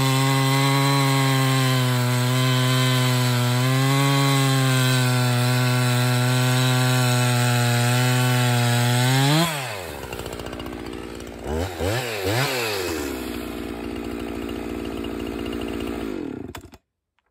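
Husqvarna 365 Special two-stroke chainsaw with an Oregon EXJ chain cutting through a log under load at a steady pitch. About nine and a half seconds in, the engine revs up freely out of the cut and drops to idle, with two quick throttle blips. It idles until it is switched off near the end.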